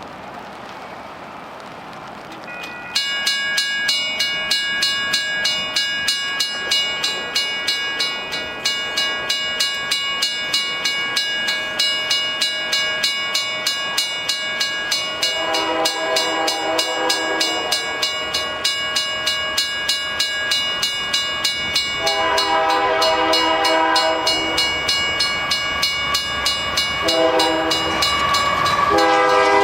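Railroad crossing bell, a WRRS mechanical bell, starts ringing suddenly about three seconds in and keeps up steady, rapid strikes: the crossing signals have activated for an approaching train. Over it, the air horn of a Union Pacific AC4400CW freight locomotive sounds the grade-crossing pattern: two long blasts, a short one, then a final long one starting near the end.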